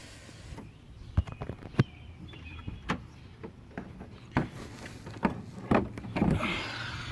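Scattered clicks and knocks, with a short scraping rustle near the end, as the minivan's hood is unlatched and raised by hand.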